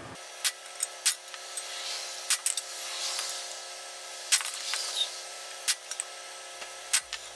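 Irregular sharp metal clinks and clanks as a C-frame press and its adapters are handled and set against a removed steel steering knuckle for the front wheel bearing job.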